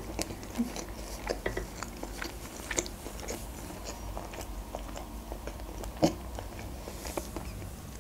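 Close-miked mouth chewing a mouthful of food: soft, wet, irregular clicks and smacks, with one sharper click about six seconds in.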